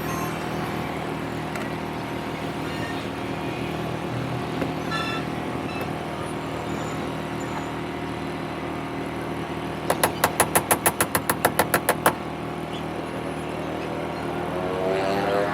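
CNC router spindle running steadily with a hum of several even tones while it cuts into MDF board. About ten seconds in, a fast run of sharp clicks, about eight a second, sounds for roughly two seconds.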